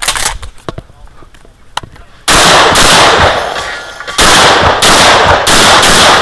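Stoeger M3K 12-gauge semi-automatic shotgun firing about five shots. One shot comes about two seconds in, then four more in quick succession from about four seconds in, each a loud blast with a ringing tail.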